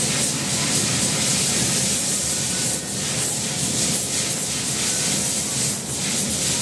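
Steady, loud hissing and rushing noise of glassworks machinery, brightest in the hiss.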